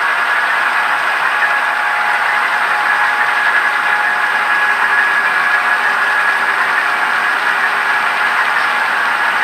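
Model train running: a steady rolling noise of a long string of empty model coal hoppers' wheels on the track, with a faint steady high whine underneath.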